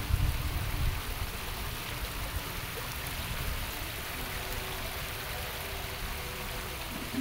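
Small fountain jets splashing into their basins: a steady, even rush of water, with a low rumble in about the first second.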